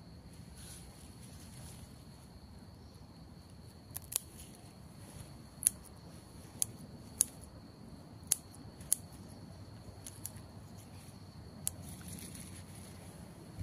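Scissors snipping off the tops of water spinach stems: about nine short, sharp snips at uneven intervals, starting about four seconds in.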